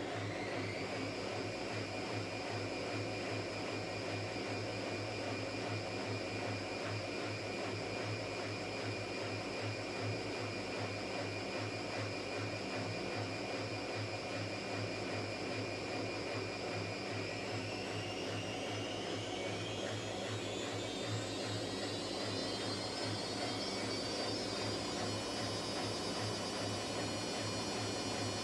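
Whirlpool AWS 71200 front-loading washing machine on its final spin: the drum motor whines over a steady low hum. The whine rises briefly at the start and holds at one pitch, then climbs steadily in the last third as the drum speeds up toward the 1200 rpm spin speed.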